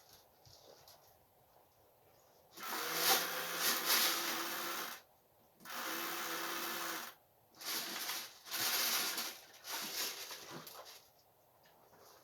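Airsoft electric M249 light machine gun firing a series of long full-auto bursts: a buzzing rattle over a steady motor whine. The first burst, about two and a half seconds in, is the longest; four shorter bursts follow with brief gaps between them.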